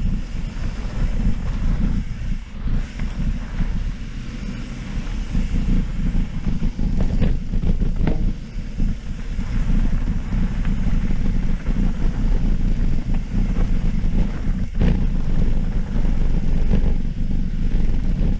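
Wind buffeting the camera microphone during a fast mountain-bike descent down a dirt trail, a steady low rumble with a few short knocks and rattles from the bike over rough ground, the sharpest about fifteen seconds in.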